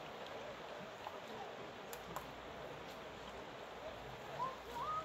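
Faint, indistinct voices of people talking over a steady hiss, with two short, louder rising calls near the end.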